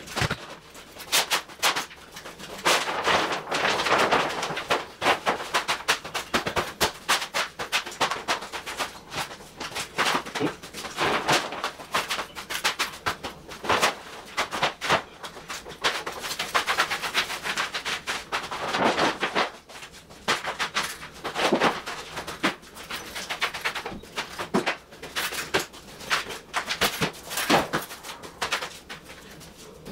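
Thin polyethylene sheeting crinkling and rustling in quick, irregular crackles as it is spread out and stepped on.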